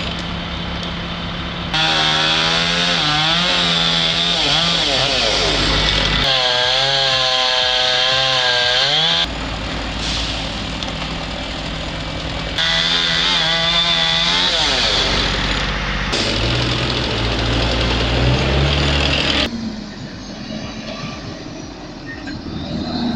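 Chainsaws running and revving, their pitch rising and falling, over a series of short clips that change abruptly every few seconds; quieter over the last few seconds.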